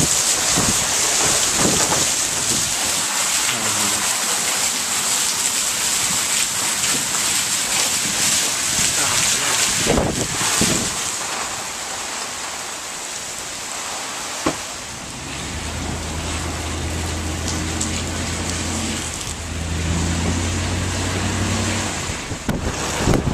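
Hurricane rain and wind: a dense, steady hiss. About two-thirds of the way through, a low steady hum joins in and breaks off briefly before carrying on.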